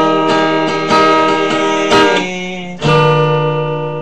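Acoustic guitar strummed in single chords: three chords struck about a second apart, each left to ring and fade.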